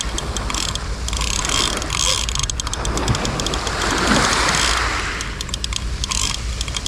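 Large spinning fishing reel clicking and ratcheting in quick runs while a hooked fish is being played.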